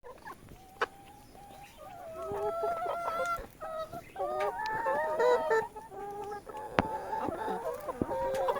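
Chickens clucking, several calling over one another and growing busier after the first couple of seconds, with a couple of sharp knocks.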